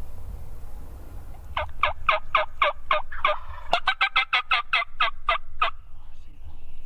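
Wild turkey yelping: a run of about seven yelps, then a quicker run of about ten, lasting about four seconds in all.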